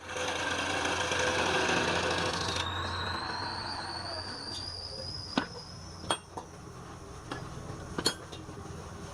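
Woodturning on a lathe: a cutting tool scraping the spinning wood with a loud rushing noise for the first couple of seconds. Then a thin whine starts, slowly rising in pitch, with a few sharp clicks.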